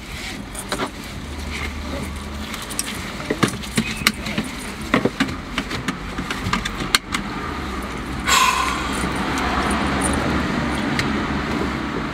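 Car cabin noise while driving: steady low engine and road rumble with scattered small clicks and rattles, the road noise growing louder about eight seconds in.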